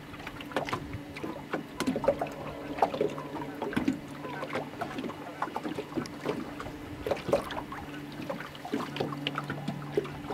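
Small waves lapping and slapping irregularly against a boat's hull, over a boat motor's steady low hum.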